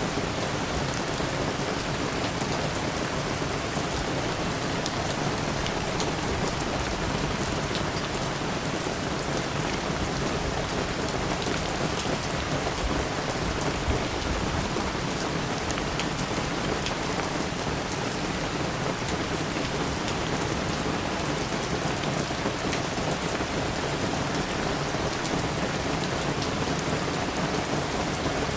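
Steady rain falling: an even hiss with scattered sharp hits of single drops, unchanging in level throughout.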